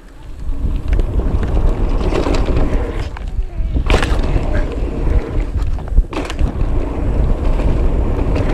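Mountain bike rolling fast down a dirt trail: tyres rumbling and the bike rattling, with sharp knocks over bumps, and wind buffeting the microphone. It gets loud about half a second in.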